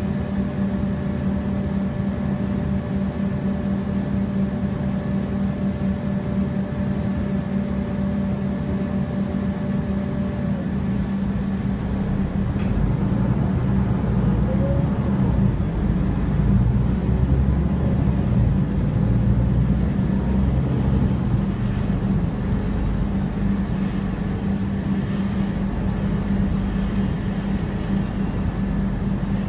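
MAN Lion's City city bus driving, heard from inside the passenger cabin: a steady engine and road hum with a constant low drone. It grows louder for several seconds in the middle, then settles back.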